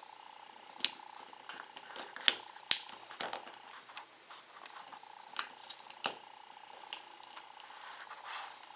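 Sharp plastic clicks and ticks as a stiff guitar pick pries along the seam of a Sansa Clip+ MP3 player's snap-fit plastic case; several irregular clicks, the loudest about two and three seconds in, over a faint steady hum.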